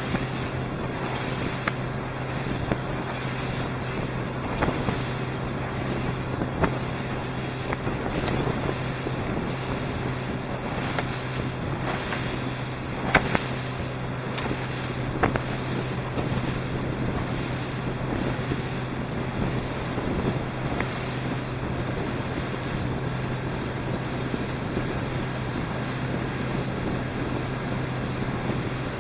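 Small boat motor running at a steady speed with a constant hum, over wind buffeting the microphone and water rushing and slapping against the hull, with a few sharp knocks.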